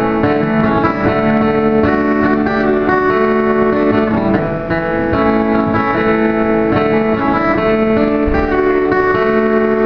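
Instrumental break in a love ballad: guitar-led music playing held chords that change about once a second, with no singing.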